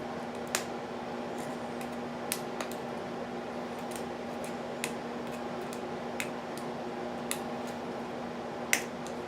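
A metal lock pick clicking against the pin stacks in the keyway of a 6-pin padlock while it is picked under tension. There are about seven scattered, sharp clicks, the loudest near the end, over a steady hum.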